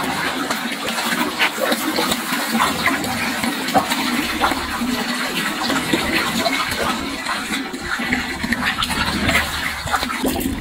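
Several pigs eating fresh sweet potato leaves: steady munching and rustling of the greens, dotted with many small crunches and smacks.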